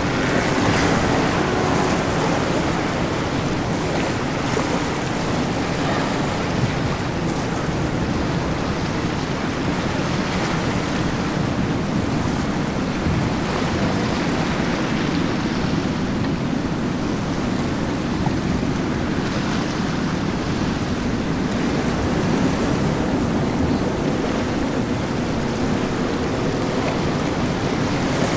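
Steady rush of waves and churning water with wind on the microphone, under the low rumble of a motor boat running fast through the inlet.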